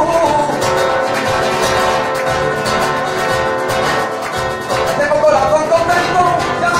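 Live rumba flamenca: acoustic guitar strumming over hand-drum percussion, with a male voice singing again about five seconds in.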